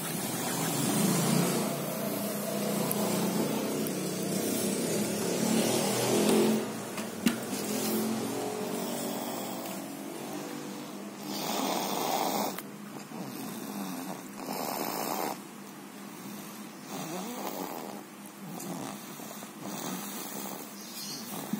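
Young child snoring in sleep. The rasp is nearly continuous for the first several seconds, then comes as separate snoring breaths every two to three seconds.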